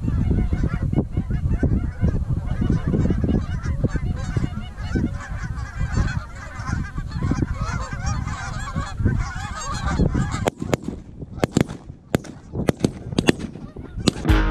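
A flock of Canada geese in flight, many birds honking at once in a dense, overlapping chorus. The calling thins out after about ten seconds, when a few sharp knocks come through.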